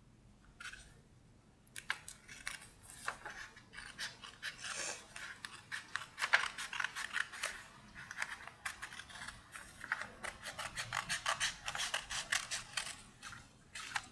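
Scissors cutting through a folded sheet of A4 paper in a long run of short, crisp snips, starting about two seconds in, as the excess strip is trimmed off to leave a square.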